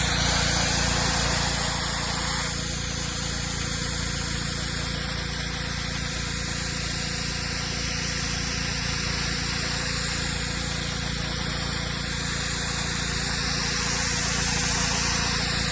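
Pressure washer running steadily, its engine droning under the hiss of the high-pressure water jet blasting dirt and mildew off a steel propane tank. The hiss eases a little about two and a half seconds in.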